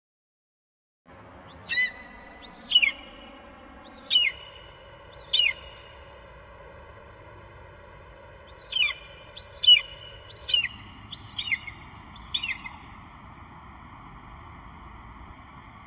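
Bald eagle cries: short, high notes, each sliding sharply downward. Four come spaced apart, then a quicker run of six, over a faint steady background hiss.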